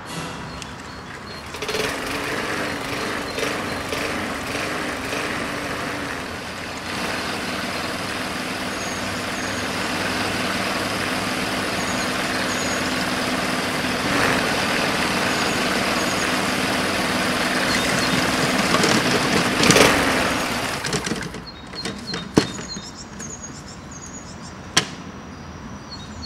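Petrol lawnmower engine running steadily, then cutting out about twenty seconds in; the mower has broken down.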